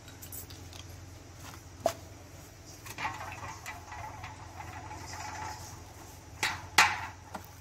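A few sharp metallic clicks and knocks as diesel cylinder-head parts and a valve are handled, the two loudest close together near the end, over a steady low hum.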